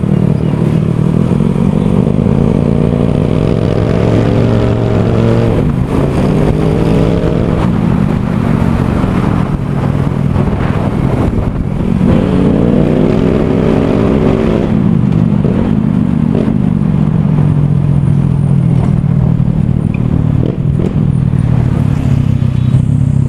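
Honda Click scooter engine running through an aftermarket Akrapovic exhaust with its dB killer removed, under way. The note rises twice as it accelerates, about four seconds in and again about twelve seconds in, and falls back between.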